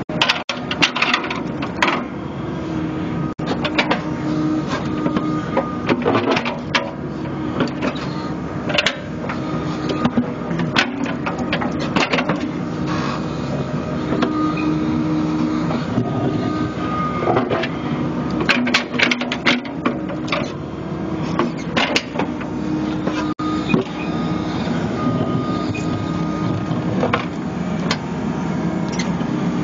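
New Holland Kobelco E80B midi excavator digging: its diesel engine runs steadily, its hum swelling and easing as the arm works, while the steel bucket scrapes through stony soil with repeated knocks and clatter of stones.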